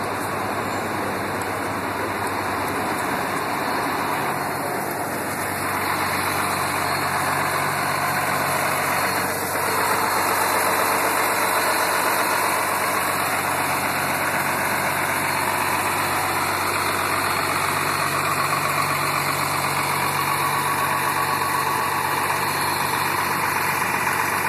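The Cummins ISL diesel engine of a 2005 New Flyer D40LF transit bus idling steadily, heard close to its rear engine grille. It grows a little louder about six and ten seconds in.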